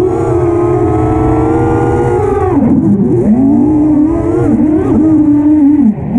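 Racing quadcopter's motors and propellers whining, heard from the drone itself. The pitch holds high at first, drops sharply a little before halfway, then climbs back and wavers with the throttle, dipping again near the end.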